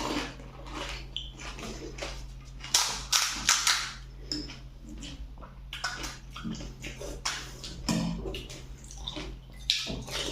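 Pani puri being eaten in a hurry: crisp puris crunching and the spiced water slurping and splashing in the mouth, in irregular bursts of clicks and wet noises.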